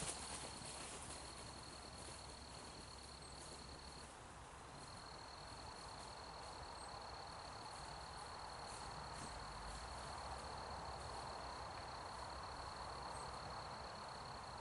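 An insect trilling on one steady high note, breaking off briefly about four seconds in and then carrying on, over faint outdoor background noise.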